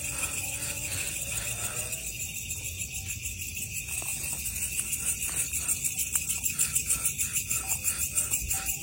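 Chorus of night insects: a steady, high, finely pulsing trill, with a low rumble underneath.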